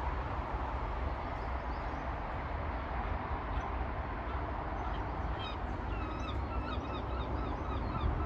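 A flock of gulls calling, many short overlapping calls that start about five seconds in, over a steady low rumble.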